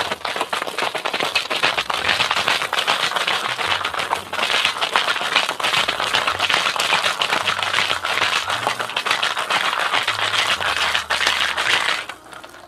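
Ice cubes rattling hard inside a metal cocktail shaker being shaken vigorously, a dense, rapid clatter that stops near the end.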